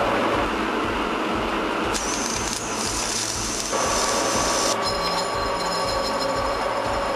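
Machine-shop noise from metalworking machines running steadily. The sound changes abruptly a few times, and a lathe turning a metal part is heard in the later part.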